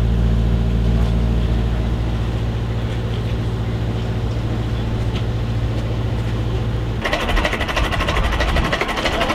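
Tractor engines idling with a low, steady hum. About seven seconds in it changes suddenly to a rougher, busier clatter of engines heard close by.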